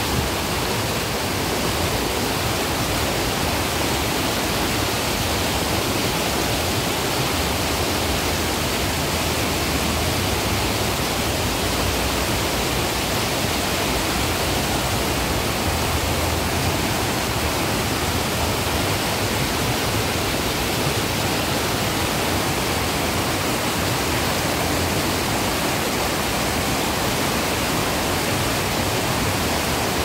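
White water rushing down a stepped concrete channel, tumbling over a series of low steps. It makes a loud, steady, unbroken rush of water.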